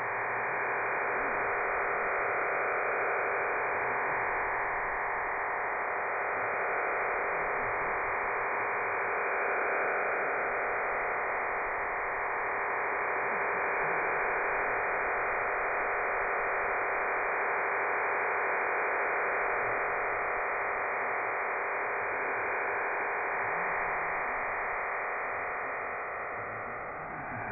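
Cuban HM01 numbers station's digital data transmission received over shortwave in AM: a steady, even hiss confined to a narrow band, with a faint steady tone under it, easing slightly near the end.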